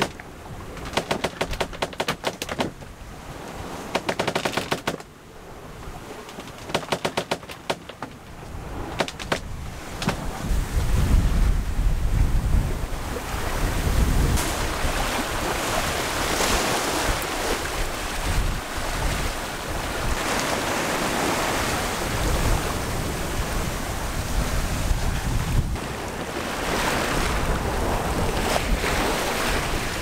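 Sounds aboard a small sailboat under way at sea: a few bursts of rapid rattling in the first several seconds, then the steady rush of wind and waves, with wind buffeting the microphone.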